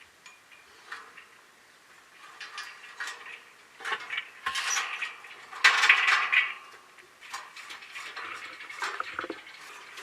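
Clinking and clattering of small hard objects, sparse at first, then a busy, louder run of clatters in the middle, and lighter clinks near the end.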